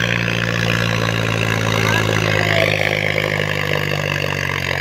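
Mahindra 265 tractor's three-cylinder diesel engine running steadily under load as the tractor works its way through deep sand.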